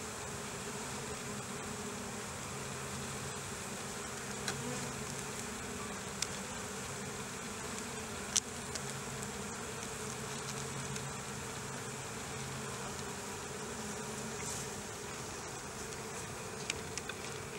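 Honeybees buzzing steadily around an open hive, with a few brief sharp clicks.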